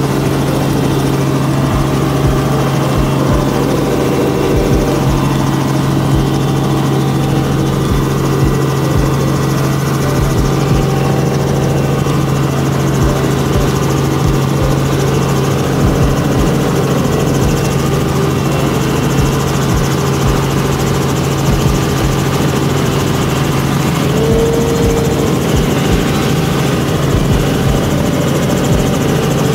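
Tour helicopter running steadily, a loud, even engine and rotor drone with a constant low hum.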